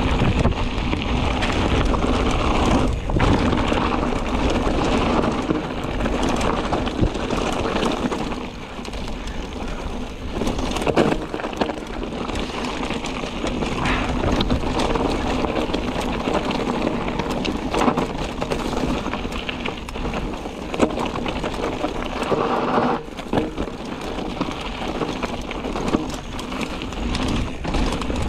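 Mountain bike rolling over a rocky dirt trail: tyres crunching on gravel and loose stones, with constant small rattles and knocks from the bike over the bumps.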